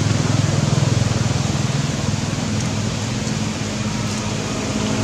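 A motor vehicle's engine running steadily: a low drone over a continuous hiss.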